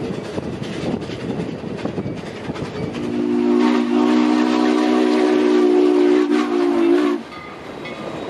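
Steam train running with a rumble and clicking of wheels on rail joints. About three seconds in, the locomotive's chime whistle gives one long blast of several notes sounding together. It cuts off sharply about four seconds later.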